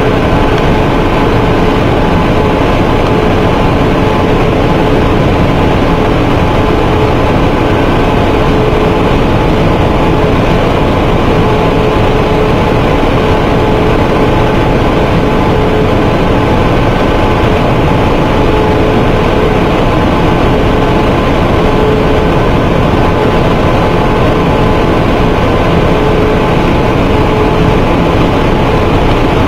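Flexographic label printing press running at speed with a cast-and-cure holographic unit fitted: a loud, steady mechanical noise with a constant whine in it.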